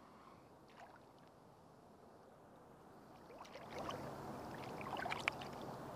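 Water splashing and sloshing as a hooked fish is drawn to the side of an inflatable float tube; it starts about halfway through, with a cluster of sharp splashes near the end.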